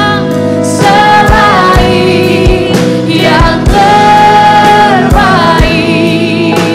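Worship music: singers holding long, wavering sung lines over a band with a steady drum beat.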